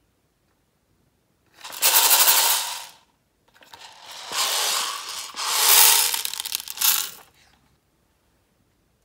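Small plastic beads pouring out of a plastic pencil case into a glass tray, rattling as they land: a short pour about two seconds in, then a longer one of about four seconds.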